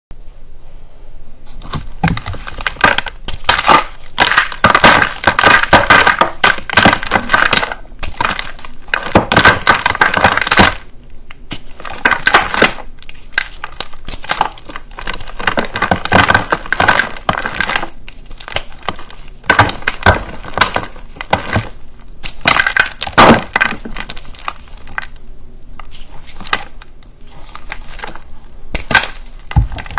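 Bare hands crushing and crumbling thick blocks of dry reformed gym chalk: dense crackling bursts as the chalk cracks and breaks apart, starting about a second and a half in and easing to softer, sparser crumbling near the end.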